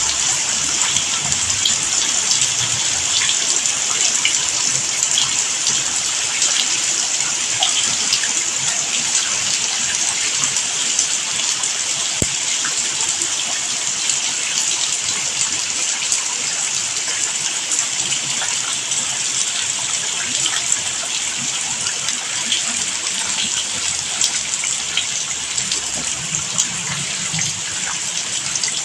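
Steady rain falling: an even, unbroken hiss with many small drop ticks scattered through it.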